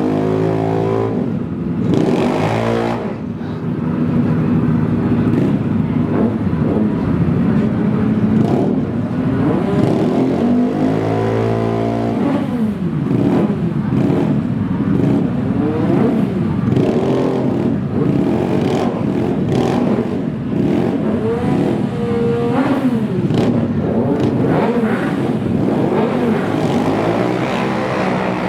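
Several drag-racing engines revving and accelerating hard. Their pitches rise and fall and overlap without a break.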